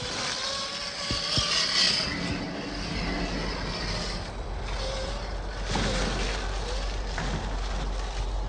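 Electric motor and drivetrain of an Axial SCX10 III RC crawler (Holmes Hobbies Trailmaster 550 brushed motor) whining as it drives, the pitch wandering up and down with the throttle.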